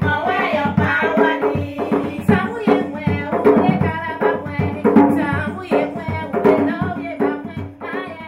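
Music with singing over a steady drum and percussion rhythm.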